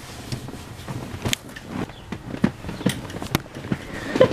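Camera handling noise: rustling and rubbing, with several sharp clicks and knocks scattered through, the loudest near the end.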